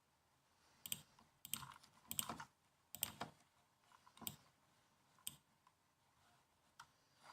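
Laptop keyboard keys typed quietly in short, irregular bursts. The taps come in quick clusters for the first few seconds, then as single keystrokes with gaps between them.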